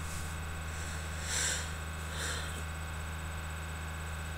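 Two short sniffs through the nose, about a second apart, the first a little louder, over a steady low hum.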